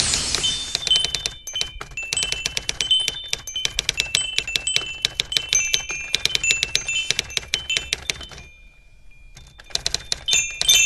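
Typewriter keys striking in quick, uneven runs as text is typed out. The clatter stops for about a second near the end, then starts again.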